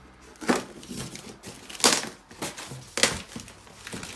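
Cardboard packaging of a flat-pack desk being handled and pulled apart: a scatter of sharp knocks and scrapes, three of them loud, roughly a second apart.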